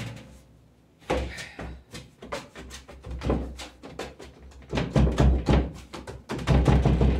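A run of thumps and light knocks on the work board as the shaped ring of rosca dough is handled and set down, starting about a second in, with the heaviest thumps near the end.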